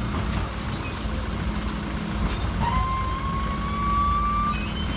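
Rear-loading refuse truck's engine running steadily with a low hum. About two and a half seconds in, a thin high tone rises slightly and holds for about two seconds.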